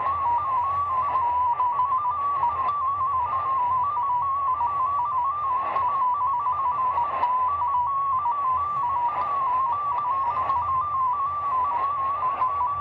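Shortwave receiver (Degen DE1103) on 7094 kHz in the 40-meter ham band playing a multi-tone digital-mode signal, probably MFSK, which could be the W1AW broadcast: a single tone near 1 kHz hopping rapidly among several close pitches, over band hiss with a few static crackles.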